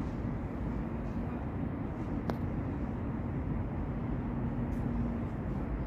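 Steady low outdoor rumble with a faint hum through it, and one sharp click a little over two seconds in.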